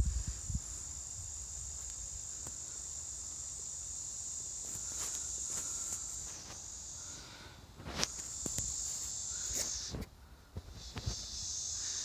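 A steady, high-pitched chorus of insects singing, which fades twice and briefly drops out before starting again, with a few short knocks and steps.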